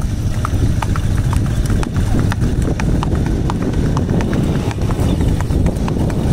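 Shod hooves of a Sindhi horse clip-clopping on a paved road at a brisk gait, a quick even beat of sharp hoof strikes over a steady low rumble.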